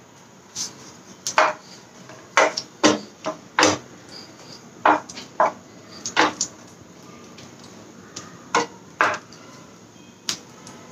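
Whole green chillies frying in a little hot oil in a nonstick pan, giving about fifteen sharp pops and cracks at irregular intervals, some in quick pairs. The chillies are bursting and spitting in the oil.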